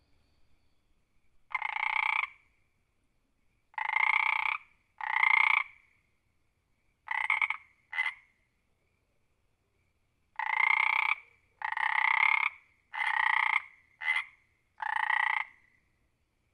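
Frog croaking: about ten calls, each under a second long, in irregular clusters with pauses between them. Two of the calls are much shorter than the rest.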